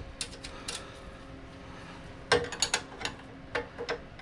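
Open-end wrench clicking against the steel lock nut on the bottom grub screw of a VW Beetle front beam as the nut is snugged down. There is a single click, then a quick run of metal clicks about halfway through and a few more near the end.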